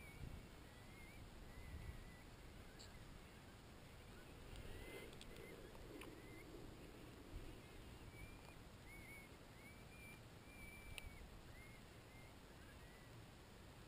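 Near silence, with faint short high chirps repeating every second or so, and a soft rustle about five seconds in.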